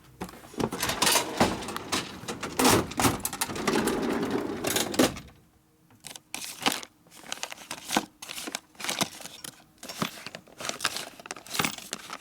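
Rummaging through small loose hardware and packaging: a dense clatter of clicks, rattles and rustling for about five seconds, then scattered single clicks.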